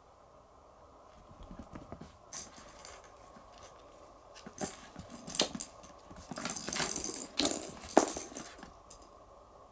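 Cats moving about on rugs and bedding: irregular rustling and light knocks and clicks in bursts over several seconds, the loudest a sharp knock near the end, over a faint steady room hum.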